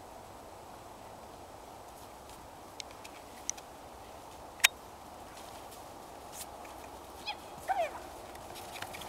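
A horse gives one short, high squeal that falls in pitch near the end, the kind of squeal horses make when playing nose to nose. A few sharp clicks come before it, the loudest about halfway through.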